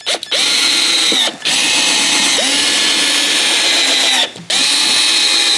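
Power drill driving screws into a wooden workbench, its motor whining in three runs with two short breaks, the pitch dipping and recovering as the screws bite.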